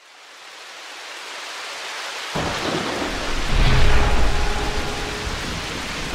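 Intro sound effect of rain and thunder: steady rain hiss fades in from silence, then a deep thunder rumble breaks in suddenly about two seconds in and keeps rolling.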